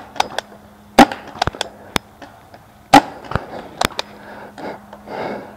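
Pump paintball markers firing, sharp single pops, with the loudest about a second in and about three seconds in, and fainter shots and paintball impacts scattered between them.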